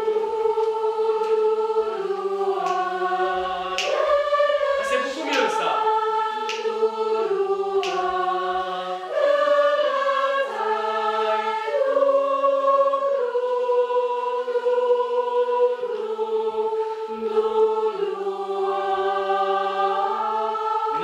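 Mixed amateur choir singing a slow phrase together, men's and women's voices in parts, each note held a second or two.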